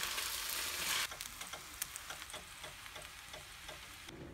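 Noodle stir-fry sizzling in a frying pan, stirred with a wooden spatula. About a second in the loud sizzle cuts off, leaving a faint crackle with scattered light ticks.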